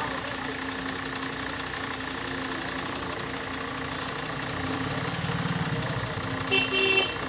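A steady engine-like machine hum runs under the window. About five seconds in a low rapid rattle rises over it, and a short louder clatter follows near the end.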